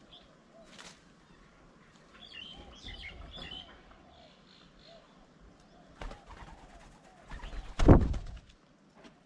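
Wild birds calling at a garden bird table: a low dove-like cooing and a flurry of high chirps a few seconds in. A single loud, sharp thump comes near the end.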